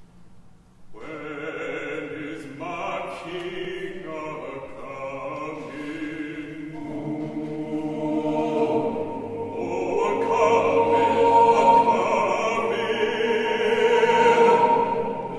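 Mixed choir singing slow, sustained chords with a baritone soloist. It begins about a second in and grows louder.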